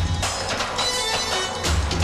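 Music with a steady drum and bass beat.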